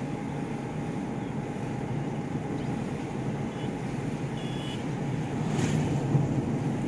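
Steady engine and road noise of a vehicle driving along a road, with a brief knock about five and a half seconds in.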